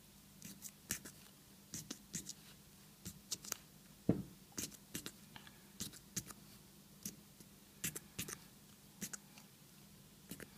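Heavy-duty aluminium foil stretched over a hookah bowl being punched through with a thin metal hole poker: a string of sharp little clicks, about one or two a second, as a ring of holes is pierced, one of them with a duller knock about four seconds in.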